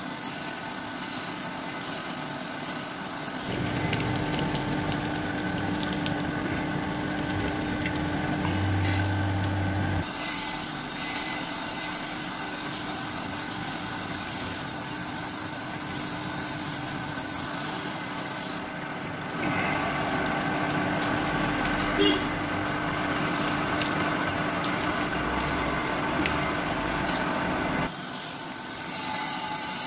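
Crankshaft grinder's abrasive wheel grinding the journals of an Alto 1000cc crankshaft under a spray of coolant: a steady whir and hiss over a motor hum. The sound shifts abruptly a few times.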